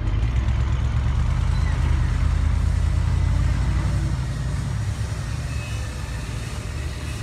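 Diesel engine of a dump truck loaded with earth, running under load as it drives away over dirt; the low rumble fades after about four seconds.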